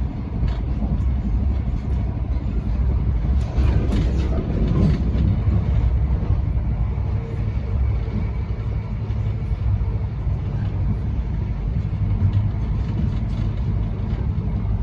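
Passenger train running along the line, heard from inside the carriage: a steady low rumble with a few brief rattles about four seconds in.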